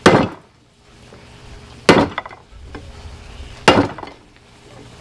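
A large hammer striking red-hot steel bars on an anvil to forge-weld them together: three heavy blows a little under two seconds apart, each with a short metallic ring.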